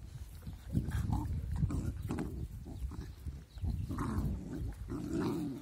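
Two puppies play-fighting, growling and snarling at each other continuously, with a few short higher-pitched cries about a second in and again near the end.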